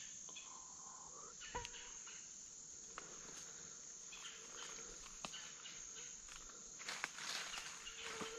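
Steady, high-pitched drone of insects in summer woods, with a few sharp clicks and a brief rustle about seven seconds in.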